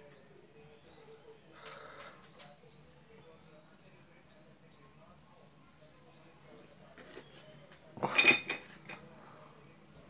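A bird chirping over and over, short high falling chirps about two a second. A brief, loud, noisy clatter breaks in about eight seconds in.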